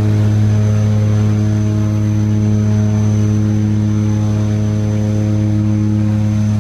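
Turboprop aircraft's engine and propellers running at a steady idle: a loud, low, even drone with a constant pitch.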